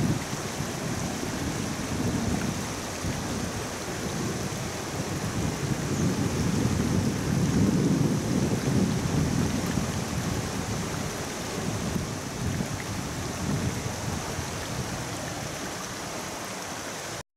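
Fast-flowing river rushing over rapids, the water running high: a steady, deep rushing noise that swells and eases.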